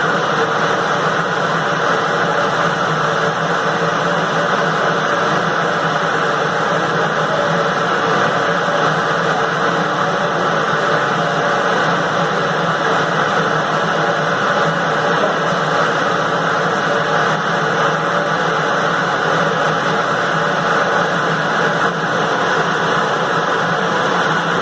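Automatic 20-litre jug washing, rinsing, filling and capping machine running: a steady, loud hiss mixed with a constant mechanical hum.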